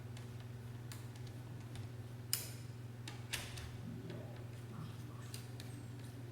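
Scattered light clicks and ticks, two of them sharper about two and three seconds in, over a steady low electrical hum.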